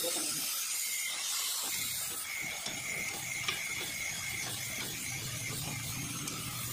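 Ratchet wrench clicking in quick strokes as a brake caliper bolt is turned, the clicks starting about two seconds in, over a faint hiss.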